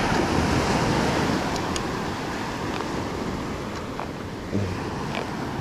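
Ocean surf washing up the beach: a steady rush of breaking waves that swells in the first second or so, then eases.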